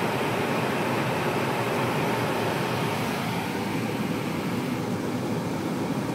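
Steady road and engine noise heard from inside a moving bus, an even rushing hiss that eases a little in the highs about halfway through.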